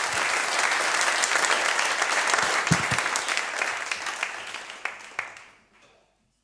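Audience applauding in a hall, steady at first and then dying away near the end with a few last scattered claps.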